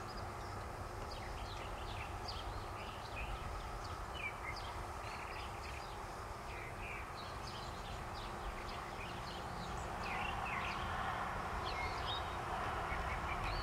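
Small birds chirping in quick, short calls again and again over steady outdoor background noise that swells a little about ten seconds in.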